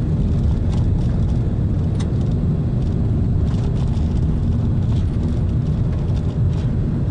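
Car driving slowly along a rough gravel track, heard from inside the cabin: steady low road and engine rumble with scattered light clicks and knocks.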